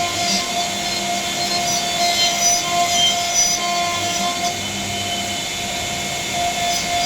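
CNC router spindle running with a steady whine while the bit cuts into a panel, a constant cutting noise beneath the tone.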